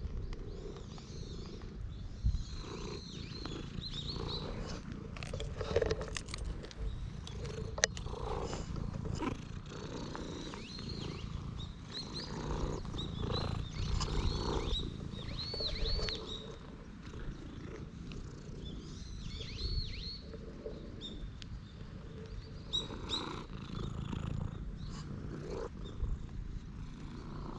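Domestic cat purring steadily up close while being stroked, with the soft rustle of a hand on its fur.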